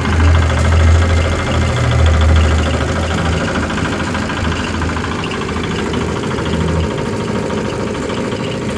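Coconut husk decorticating machine running, driven by its Nishikawa Platinum 8 hp engine: a steady mechanical drone. The strong low hum under it drops away about seven seconds in, while the rest of the running sound carries on.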